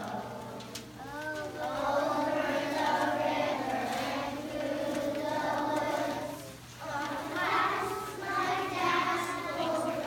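A group of young children singing together in unison, in sustained sung phrases, with a short break about two-thirds of the way through.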